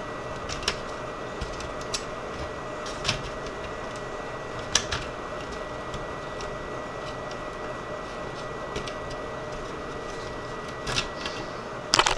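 Scattered light clicks and knocks as a Dell Latitude D630 laptop's motherboard is worked loose from its metal chassis by hand, with a cluster of louder clatter near the end, over a steady faint hiss.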